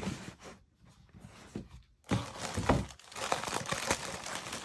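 Wrapping rustling and crinkling as a package is handled and opened: sparse and quiet at first, then busier and louder from about two seconds in, with a few sharp knocks.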